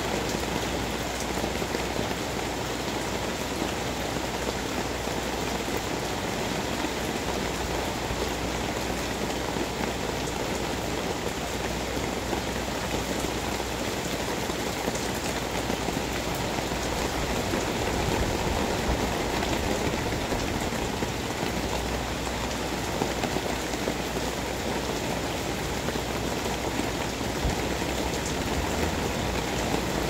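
Steady typhoon rain falling on a concrete path, wet leaves and garden plants: a continuous, even hiss of rain.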